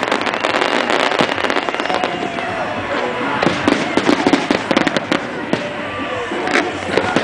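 Grucci aerial fireworks display going off: a dense, continuous crackling and popping from many shells and effects at once, with voices among the spectators.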